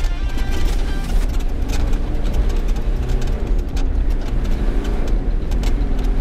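Off-road 4x4 driving over rough ground: a heavy low rumble with many short knocks and rattles scattered throughout. A music tail fades out about a second in.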